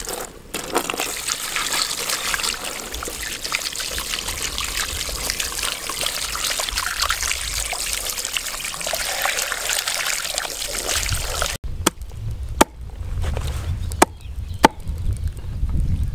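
Water poured in a stream splashing and trickling over raw carcass pieces in a plastic basin as they are rinsed by hand. It stops suddenly about twelve seconds in, followed by four sharp knocks of a blade on a wooden chopping block.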